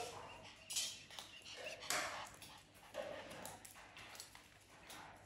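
A blue-and-gold macaw, a red macaw and a sulphur-crested cockatoo feeding from a metal seed tray: beaks scraping the tray and seed rattling, with a few short sharp noises, the loudest about two seconds in.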